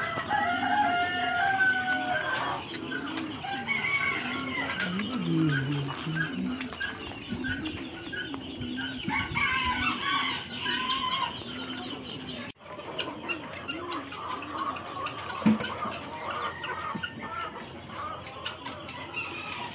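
Farmyard poultry calling: hens clucking, with a rooster crowing now and then. The calls overlap continuously, with a brief break about two-thirds of the way through.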